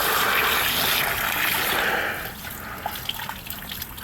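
Water from a running garden hose pouring and splashing into a tub of quench water, louder for the first two seconds, then softer trickling with a few small drips.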